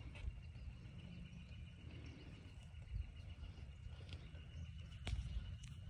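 Outdoor walking ambience: a low wind rumble and handling noise on a phone microphone, with short bumps about a third of a second in, halfway through and near the end. A faint, steady, high-pitched trill runs in the background.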